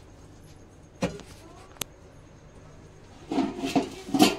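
Handling noises as things are moved in a cluttered room: a knock about a second in and a sharp click a little later, then a short burst of indistinct voices near the end.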